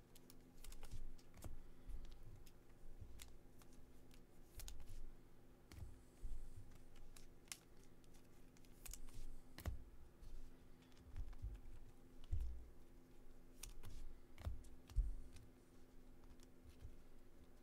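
Irregular light clicks and taps with soft low thumps, from small objects being handled on a desk, over a faint steady hum.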